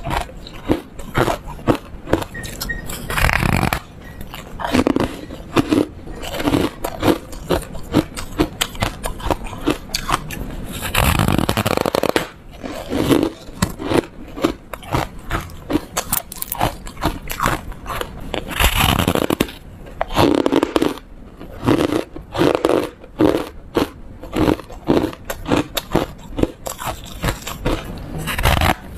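Bites into and chewing of a block of yellow foam ice: dense, crisp crunching and crackling, with a few louder bites standing out from the steady chewing.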